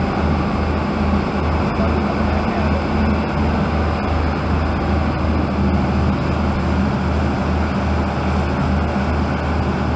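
Fishing boat's engine running steadily under way: a low, even drone under a constant rush of water past the hull.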